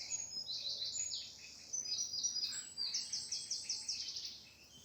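Woodland songbird singing three quick phrases of rapid, high, repeated notes, each note sliding down in pitch, over a faint background hiss.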